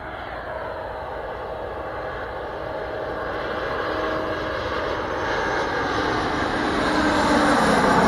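Jet airliner's engines as it approaches low, a steady engine noise with a whine, growing louder throughout.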